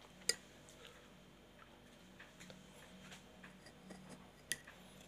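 Faint, scattered light clicks and taps over a low hum, with a sharper click just after the start and another near the end.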